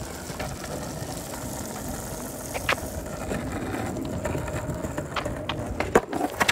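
Longboard wheels rolling over wet asphalt with a skateboard stacked on its deck: a steady rumble with a faint hum and scattered clicks. A few sharper knocks come near the end as the rider steps down and the top board rocks.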